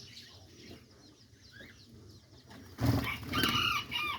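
A mixed aviary flock of parakeets, lovebirds and diamond doves chirping faintly, then about three seconds in a louder burst of bird calls lasting about a second.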